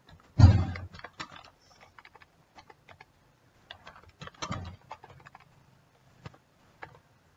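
Typing on a computer keyboard: irregular key clicks, with two heavier key thumps about half a second in and about four and a half seconds in.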